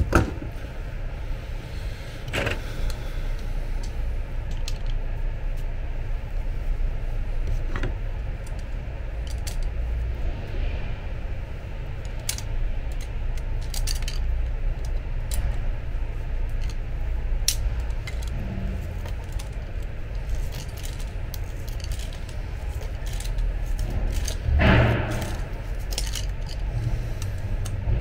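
Pliers clicking and scraping on the metal lead screw and gear of an electric bed's drive actuator as the worn gear is worked loose and unscrewed: scattered sharp metallic clicks, with a louder scrape near the end. A steady low rumble runs underneath.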